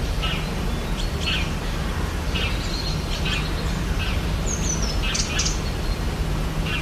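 Rainforest ambience: several birds chirping and calling in short repeated notes, with a high whistle that falls in pitch about four and a half seconds in, over a steady low rumble.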